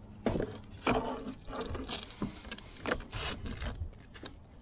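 Irregular knocks, clatters and scrapes of gear and a shot armored catfish being handled on a plastic kayak deck, with the loudest scrapes about three seconds in.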